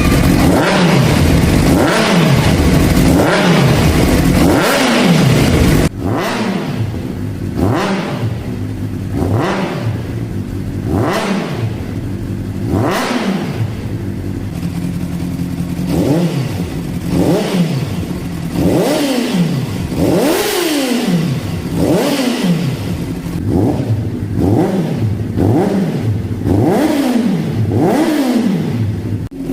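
Honda CBR600RR inline-four engine revved again and again through its exhaust, each blip rising quickly in pitch and falling back toward idle, about one a second. It is louder and blips faster for the first six seconds, then quieter.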